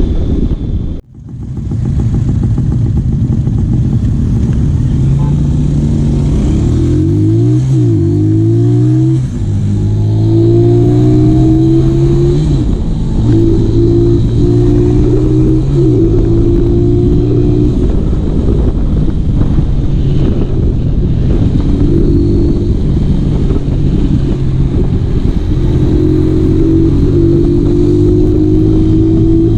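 A stroked-up Honda Tiger motorcycle engine accelerating hard, its pitch climbing and then dropping again at each gear change several times over, under heavy wind noise on the microphone. The sound drops out briefly about a second in.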